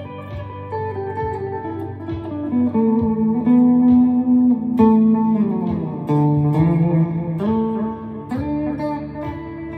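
Chapman ML3 Pro Traditional electric guitar with Seymour Duncan Hot Tele pickups played slowly in an ambient style, with long notes ringing into one another. Notes slide down in pitch about halfway through.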